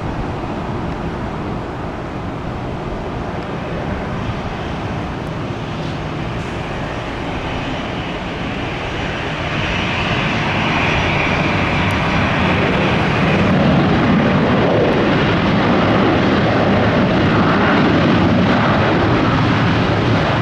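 Jet airliner engines running and growing louder partway through, a steady rushing noise with a brief higher whine in the middle.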